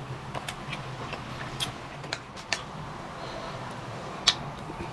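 Eating sounds from a bowl of bulalo soup: a few scattered sharp clicks and smacks, the loudest about four seconds in, over a steady low hum.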